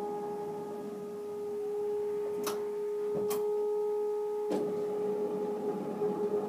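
Toyota Sienna wheelchair van's VMI Northstar power sliding door and fold-out ramp mechanism operating, with a steady whining tone throughout. Two sharp clicks come near the middle as the door finishes opening. A clunk follows about two-thirds of the way in as the ramp starts to deploy, and the mechanical sound grows busier after it.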